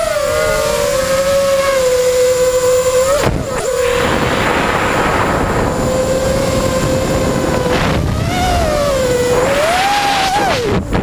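Brushless motors of a QAV210 FPV quadcopter (Emax 2205 2300KV spinning DAL 5x4.5 three-blade props) whining steadily in flight. The whine cuts out briefly about three seconds in, then swells and falls in pitch with the throttle near the end.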